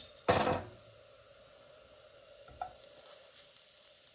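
Butter sizzling faintly in a hot frying pan while biscuit pieces toast in it, broken by a short loud noise about a third of a second in and a smaller click past halfway.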